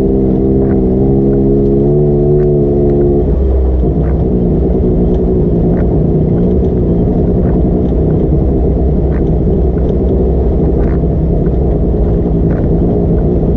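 Vehicle engine running loud and steady; a little over three seconds in its even pitch gives way to a lower, rougher rumble.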